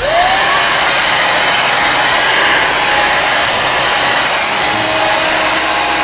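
Vytronix 3-in-1 stick vacuum cleaner switched on, its motor whining up to speed in the first moment and then running steadily at full power with a high whine.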